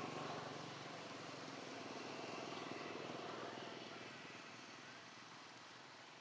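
An engine running with a fast, even pulse, fading away over a few seconds.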